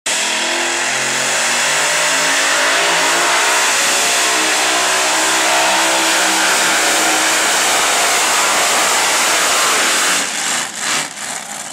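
Modified pulling tractor's supercharged engines at full throttle hauling a weight-transfer sled, a loud, dense engine roar whose pitch wavers and slowly climbs. About ten seconds in the roar drops off sharply and surges once more briefly as the pull ends.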